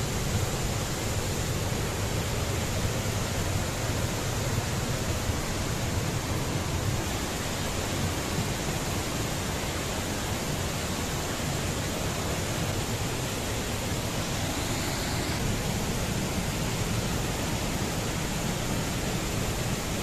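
Steady rush of a tall waterfall and the rocky cascades of the river below it: an even, unbroken noise of falling and tumbling water.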